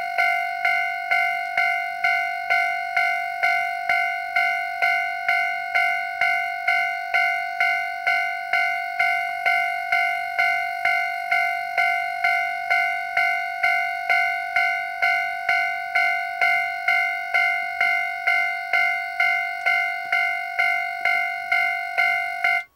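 Japanese railway level-crossing alarm sound generator ringing its electronic crossing bell: a steady string of identical dings, about two a second, each fading quickly before the next. It cuts off abruptly near the end.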